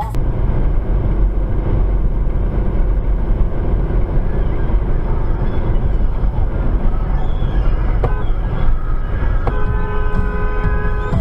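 Steady tyre and wind noise inside a car travelling at motorway speed. About nine and a half seconds in, a car horn gives a long, steady blast, sounded at a car hogging the passing lane ahead.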